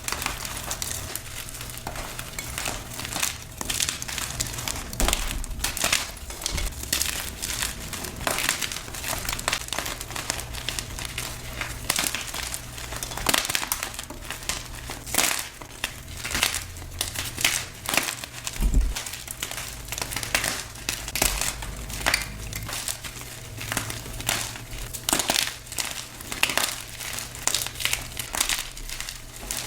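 Blocks of gym chalk being crushed and crumbled, a dense, irregular run of crisp crunches and crackles.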